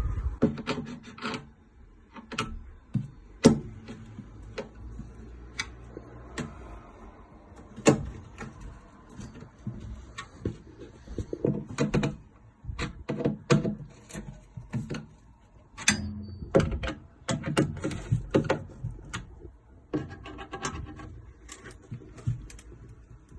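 Irregular clicks, knocks and rubbing as screws are driven in by hand to secure the particleboard frame of an IKEA Alex drawer unit.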